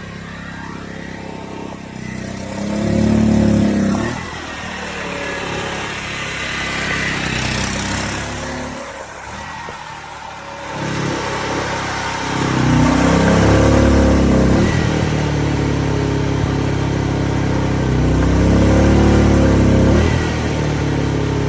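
An engine running, its speed rising and falling in several swells. It is loudest a few seconds in, then twice more in the second half.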